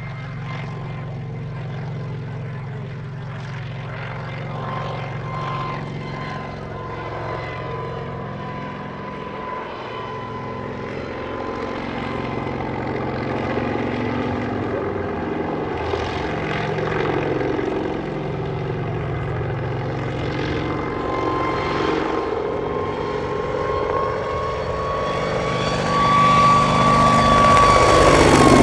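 Kamov Ka-26 coaxial-rotor helicopter flying overhead, its twin radial piston engines and rotors running with a steady drone and a high whine on top. It grows louder over the last few seconds as it comes closer.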